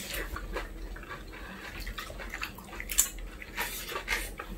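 Eating at a table: wet chewing and mouth sounds, with scattered light clicks of chopsticks and spoons on dishes and a sharper click about three seconds in.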